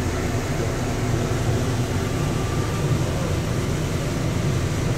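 Bombardier APM-100 automated people-mover train running along its guideway: a steady low rumble and hiss from its rubber tyres and drive, with no change in level.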